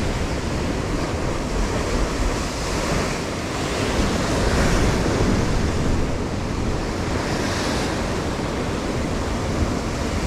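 Sea waves breaking and washing in at the shoreline, swelling louder a little over four seconds in, with wind rumbling on the microphone.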